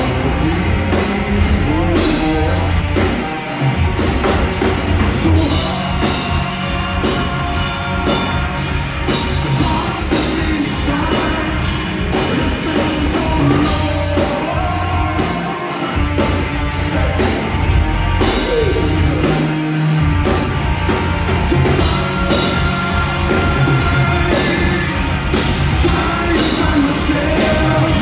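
Alternative metal band playing live at full volume: electric guitars, bass and drum kit, with a lead singer singing into a microphone.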